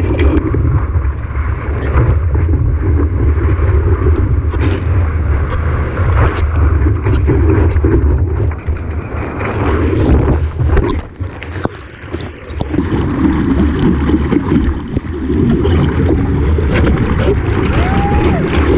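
Wind buffeting the microphone over rushing ocean water, with a brief lull about eleven seconds in.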